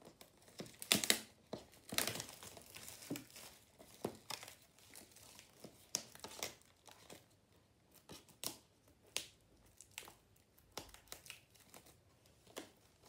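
Packaging on an iPad box being torn open and crinkled by hand: irregular rips and rustles, the loudest about a second and two seconds in.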